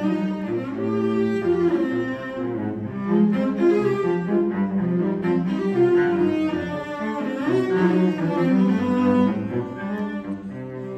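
Two cellos playing a bowed classical duet, with sustained notes in both parts shifting from note to note.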